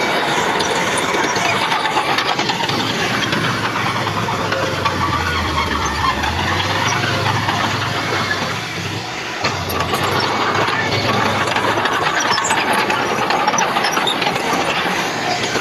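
Heavy diesel earthmoving machinery running steadily, engine note with dense clattering mechanical noise; the level dips briefly about nine seconds in, followed by a single sharp knock.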